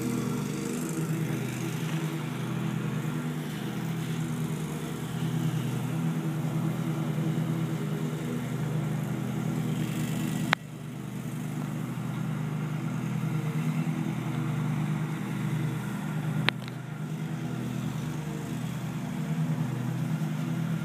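A motor running steadily with a low, even hum and a slow regular pulse. Two sharp clicks, about ten and sixteen seconds in.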